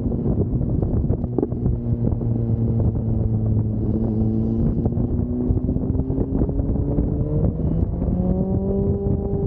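Motorcycle engine running on the move, its pitch climbing slowly and then stepping up about eight seconds in, with wind rushing over the microphone.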